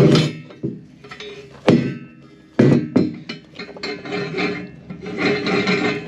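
Metal and wood knocking and scraping as clamp-on pallet forks are fitted to a tractor loader bucket: three sharp knocks in the first three seconds, then a stretch of rough rubbing near the end.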